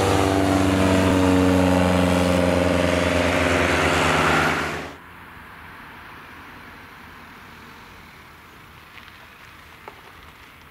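Scheibe SF-25 C Falke motorglider passing low overhead in the climb, its piston engine and propeller running at full power with a steady drone. The sound stops abruptly about five seconds in, leaving only a faint steady hiss with a few small clicks.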